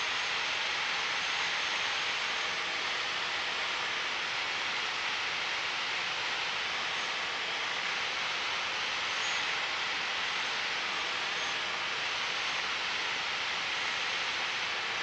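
Steady, even rush of engine and airflow noise inside the cabin of a single-engine Piper PA-28 Warrior in flight, heard as a constant hiss.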